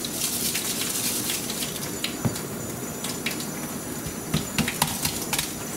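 Dry rub shaken from a shaker bottle onto pork ribs on a foil-lined sheet pan, then the bottle set down on the counter and the ribs handled on the foil, giving several short sharp clicks and taps over a steady hiss.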